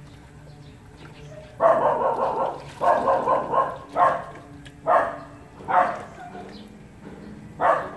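A dog crying out in loud, pitched yelps starting about a second and a half in: two drawn-out cries, then short yelps about one a second.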